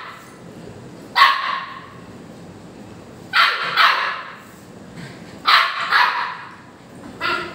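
Two-month-old Labrador puppy barking in high-pitched barks: one bark, then two quick pairs, then one more near the end. It is begging and demanding more chapati.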